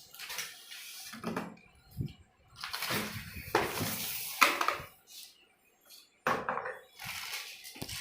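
Irregular handling noise as vacuum cleaner parts are unpacked: plastic and metal pieces knocking, clattering and rustling in short bursts, with a sharp knock about four and a half seconds in.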